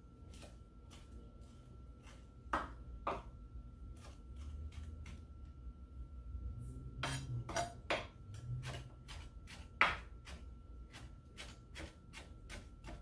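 Chef's knife chopping cilantro on a wooden cutting board: irregular knocks of the blade against the board, about two or three a second, a few louder than the rest. A faint steady high tone runs underneath.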